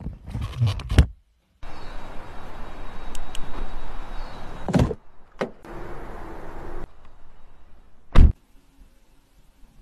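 Maserati Levante car door shut with one heavy thump about eight seconds in. Before it come soft knocks from handling the key in its case, then a few seconds of noisy hiss ending in a knock.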